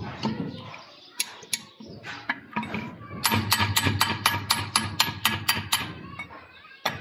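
A rapid run of sharp clicks or taps, about five a second, lasting nearly three seconds midway, with a few single clicks before it. A low hum and faint voices sit underneath.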